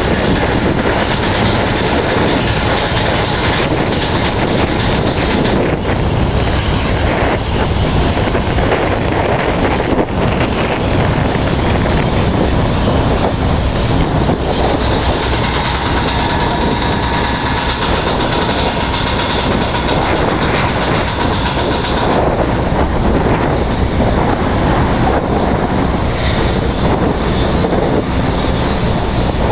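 Strong wind buffeting the microphone, a loud steady rumbling roar, with a faint steady hum coming in about halfway through and stopping a few seconds later.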